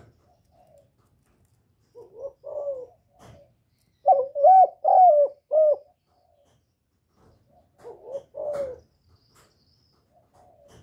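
Spotted dove cooing one full song: a soft pair of notes about two seconds in, four loud wavering coos in the middle, and a closing pair near the end.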